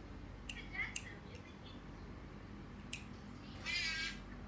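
A short, high-pitched, meow-like call about three and a half seconds in, with a briefer gliding call near the start. Faint clicks of small plastic toy parts being handled.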